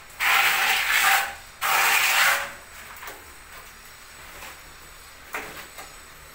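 Hand trowel scraping tile adhesive across a wall in two long rasping strokes, then fainter scraping as more adhesive is scooped from a bucket.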